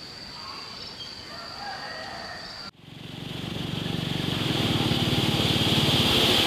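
A steady high insect buzz with faint bird chirps, cut off suddenly a little under halfway through; then a loud rushing of fast floodwater that grows steadily louder.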